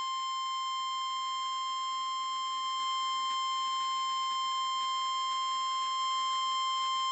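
NOAA Weather Radio's 1050 Hz warning alarm tone: one steady, unbroken high-pitched beep heard over the radio. It alerts receivers that a warning message is about to be read, here a flash flood warning.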